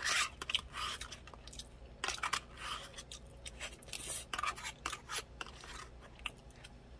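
A plastic spork scraping and scooping rice out of a black plastic meal tray, heard as irregular scrapes and clicks, with chewing in between.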